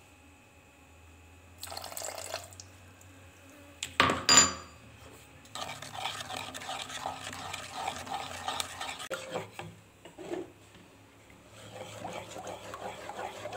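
A wooden spatula stirring thick tomato sauce in a non-stick pot, scraping rhythmically over the pan's bottom in two spells. About four seconds in comes a single sharp, ringing clink, the loudest sound.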